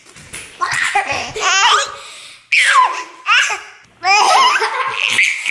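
A baby and a young child laughing in several short, high-pitched bursts.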